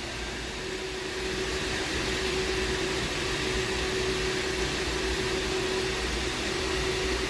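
Steady mechanical hum of running HVAC equipment, with a constant droning tone over a low rumble, growing a little louder about a second and a half in.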